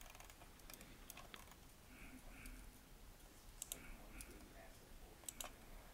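Scattered sharp clicks of a computer mouse and keyboard, the loudest coming as two quick pairs about three and a half and five and a half seconds in, over faint room tone.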